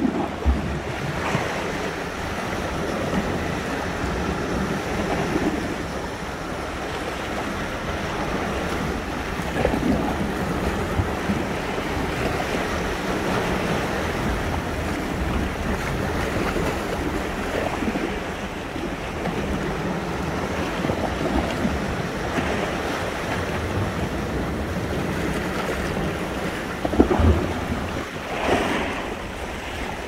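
Sea surf washing on the shore in a steady rush, with louder breaking waves about ten seconds in and twice near the end. Wind rumbles on the microphone underneath.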